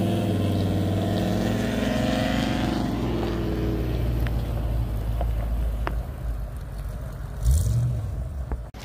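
A red classic car's engine running as it drives past, its pitch sliding as it goes by. Then a Fox-body Ford Mustang's engine as it pulls away, with a short blip of throttle near the end.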